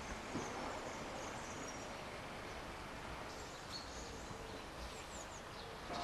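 Faint outdoor ambience: a steady background hiss with a few faint, high, short bird chirps.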